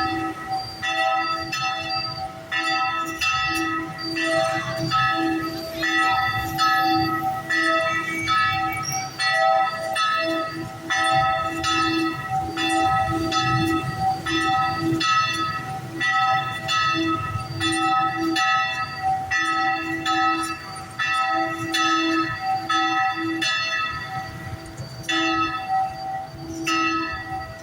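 Church bells ringing, struck over and over roughly twice a second, each stroke ringing on into the next.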